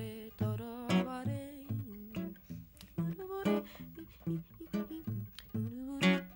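Acoustic guitar playing the instrumental close of a song, a run of plucked notes and strummed chords.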